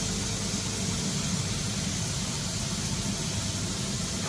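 Steady running noise of a GNUTTI G359 machining center, heard from inside its cabinet: a low hum with an even hiss over it and no distinct knocks or strokes.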